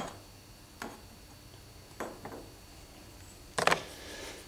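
A few light, sharp knocks and clicks of plaster rock castings being handled and set into place on a wall, the loudest cluster near the end followed by a brief rustle.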